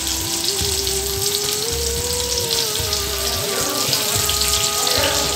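Tomato slices sizzling and crackling in hot fat in a frying pan, a steady dense hiss, with background music playing.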